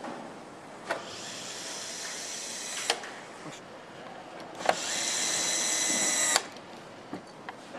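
Electric screwdriver driving fairing screws: two steady whining runs of about two seconds each, each starting and ending with a sharp click.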